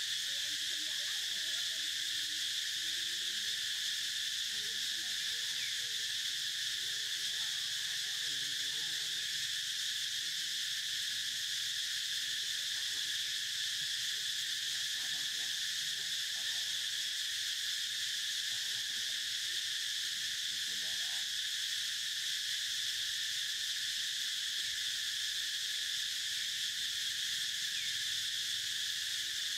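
Steady, unbroken chorus of insects, a high-pitched drone that holds the same level throughout.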